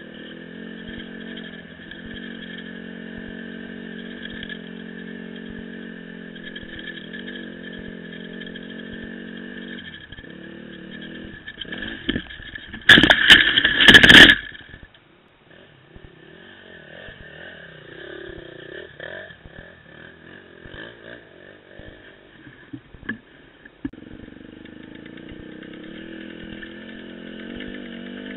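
Dirt bike engine running steadily on a trail ride. Midway there is a loud scraping clatter, about a second and a half long, as the bike goes off into the scrub. The engine then runs low and unevenly for several seconds before picking up again toward the end.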